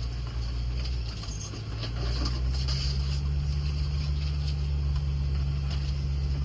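Land Rover Discovery's engine running, a low steady drone that steps up in pitch about two seconds in.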